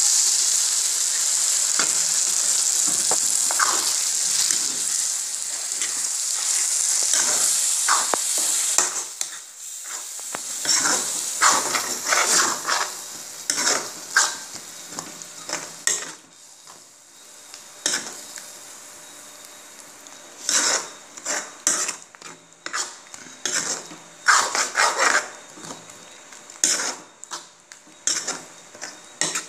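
Okra and yogurt sizzling steadily in a hot kadai for about the first nine seconds, the sizzle then dying away; after that a steel spoon scrapes and knocks against the pan in short, irregular strokes as the yogurt is stirred through the okra.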